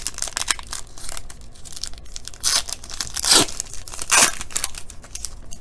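Foil wrapper of a Panini Court Kings basketball card pack crinkling and being torn open by hand, with two louder rips in the second half.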